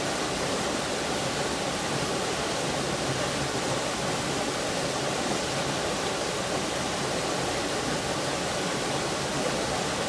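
Small waterfall in a rocky mountain stream, water pouring over a boulder into a shallow pool with a steady rush that does not change.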